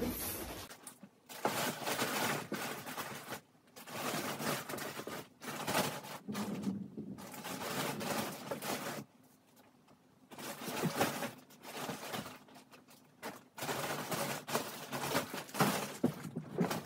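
Plastic vacuum storage bag crinkling and rustling as clothes are stuffed into it, in irregular bursts with short pauses between them.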